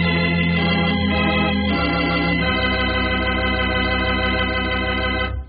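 Organ music cue: held chords, the chord and bass moving lower a couple of times, cutting off abruptly near the end.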